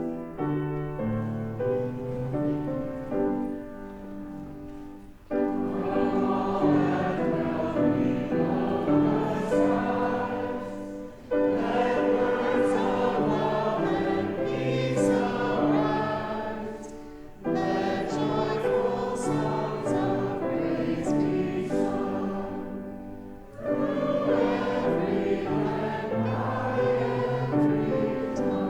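Choral singing with musical accompaniment, a group of voices singing a hymn in phrases of about six seconds, each phrase starting sharply.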